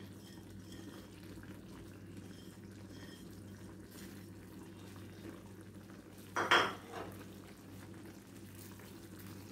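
Grated jaggery being scraped off a plate into a kadai of simmering pickle: a faint steady low hum, with a short clatter of utensil against plate about six and a half seconds in and a lighter one just after.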